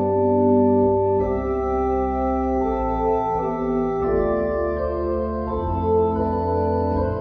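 Phoenix three-manual digital organ playing slow sustained chords over held pedal bass notes, sounding through its wall-mounted loudspeakers; the chords change every second or so.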